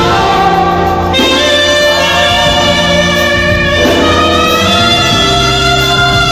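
Saxophone playing a slow melody of long held notes over keyboard accompaniment with a steady bass line, in live music.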